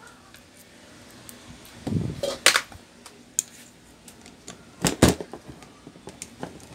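A handful of metal clicks and knocks from a screwdriver and the metal parts of an electric fan motor being handled while its screws are taken out: a dull knock about two seconds in with a sharp click just after, then a sharp double click about five seconds in.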